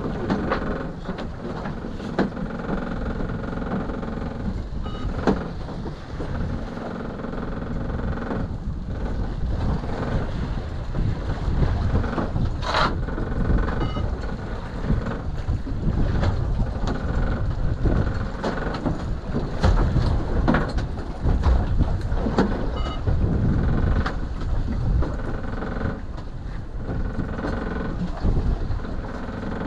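Small boat's engine running steadily under wind and sea noise, with occasional sharp knocks and clicks, the loudest about halfway through.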